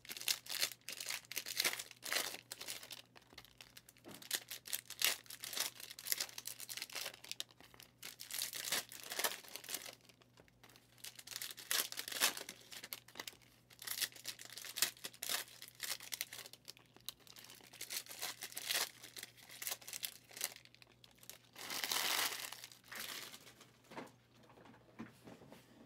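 Trading-card pack wrappers (2023 Prizm Draft Picks) being torn open and crinkled by hand, in irregular bursts of crackling, with a longer, louder rip about 22 seconds in. A low steady hum runs underneath.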